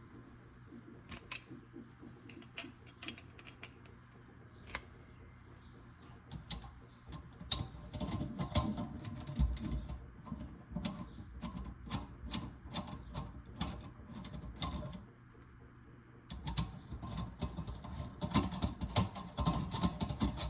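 Quick, irregular metal clicks and rattles from a garbage disposal's sink-flange mounting ring and its screws being worked with a screwdriver to take up the slack. The clicks are sparse at first, then come in two busy spells with a short lull between them.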